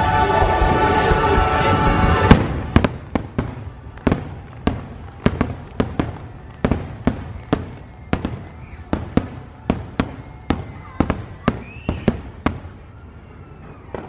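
Show music with singing for about two seconds, then cuts off. A rapid run of aerial firework shells bursting follows, sharp bangs about two or three a second, stopping shortly before the end.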